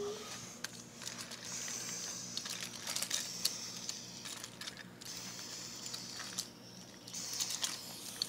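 Light, scattered clicking and clattering of wooden toy train cars being handled and lifted out of a derailed pile, with a soft rustle.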